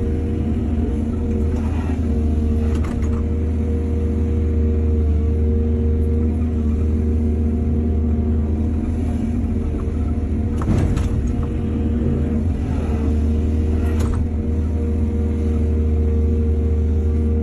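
Excavator's diesel engine running steadily, with four sharp knocks over it, the loudest about eleven seconds in.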